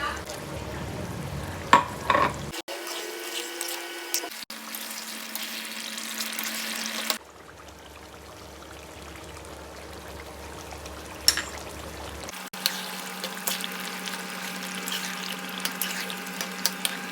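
Cooking in a pan, heard as a series of short cuts: a steady sizzling or bubbling hiss with stirring, and a few sharp knocks of a utensil, the loudest about two seconds in and again near eleven seconds.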